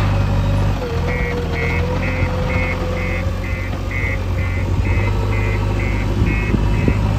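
Heavy diesel engine running steadily, its note shifting about a second in, as a reversing alarm starts beeping at about two and a half beeps a second and keeps going.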